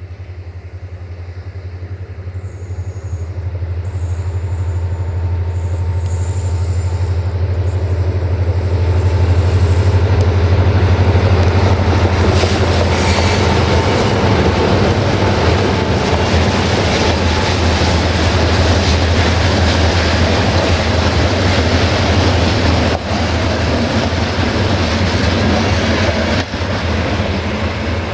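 Diesel-electric locomotive with a GM engine (CFR Class 64, 64-1300-4) hauling a passenger train past: the deep engine drone grows louder over the first ten seconds, then the wheels and coaches run by with a rushing clatter and a thin wheel squeal at times.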